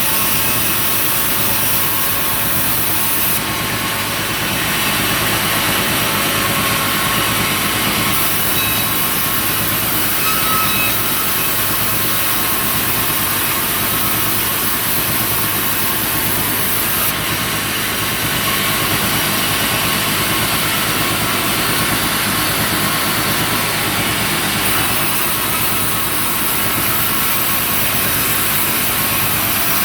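Sawmill machinery running steadily: an engine-driven wood saw with a constant mechanical drone and a strong high hiss that shifts in level several times.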